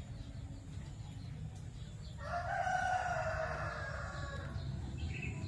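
A rooster crowing once: one long pitched call of a little over two seconds, starting about two seconds in, over a steady low background noise.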